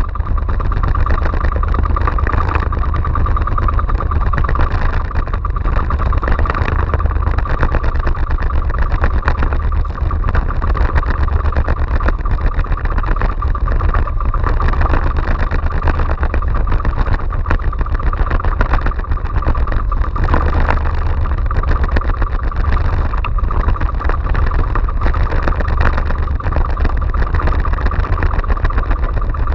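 Outrigger fishing boat's engine running steadily at a constant speed while trolling through choppy sea.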